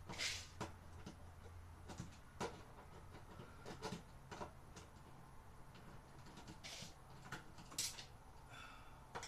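Hands working at the back of a refrigerator: scattered light clicks and taps with a few brief scraping rustles.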